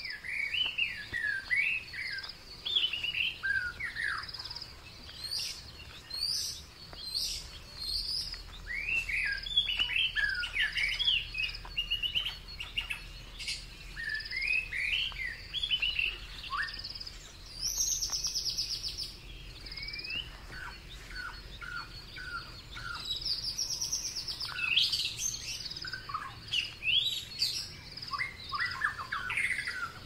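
Several songbirds chirping and singing in short, overlapping phrases, with quicker rapid-note runs a little past the middle and again later. A thin, steady high tone lies beneath them.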